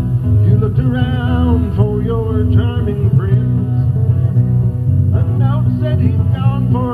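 Country song with guitar chords held steady underneath and a gliding, wavering melody line above them.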